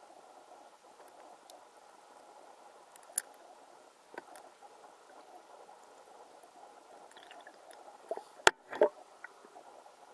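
Underwater sound in shallow sea water picked up by a submerged camera: a steady faint hiss with a few scattered sharp clicks, and a loud sharp click followed closely by a duller knock about eight and a half seconds in.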